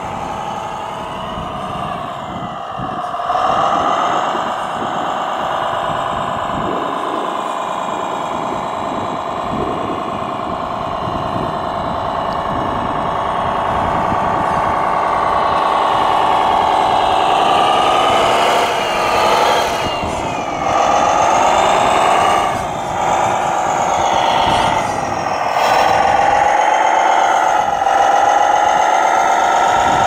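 Electric drive motor and gearbox of a Cross RC HC6 6x6 model truck whining as it pulls a loaded lowboy trailer, the pitch rising and falling with the throttle and swooping up and down several times in the last third.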